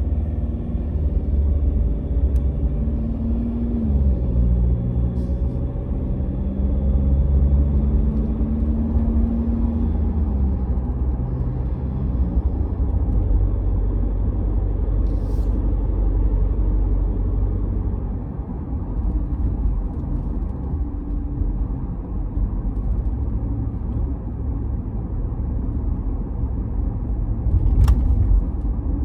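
Ford Ranger WildTrak's 2.0 L bi-turbo diesel running with a steady low rumble. Over it a low hum shifts down in pitch about four seconds in and again about ten seconds in, then fades out: the noise the owner reports as a problem.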